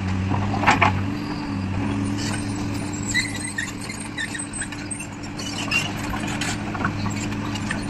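Excavator's diesel engine running at a steady pitch. A sharp knock comes about a second in, then scattered scraping and short squeaks from the working machine.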